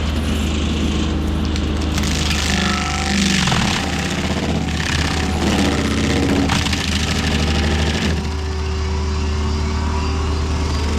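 Heavy-equipment diesel engine running steadily under load, with a louder stretch of grinding through wood in the middle as the mulching head bites in, the engine pitch dipping as it takes the load.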